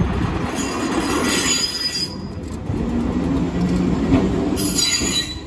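Hiroshima Electric Railway streetcar no. 238, a former Hannover tram, running past close by on street track with a low rumble, its wheels squealing on the rails about half a second in and again near the end.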